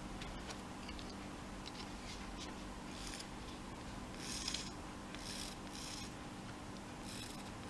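Several brief scratchy rubbing sounds of hands working paper-craft materials at a table, the loudest about four and a half seconds in, over a faint steady low hum.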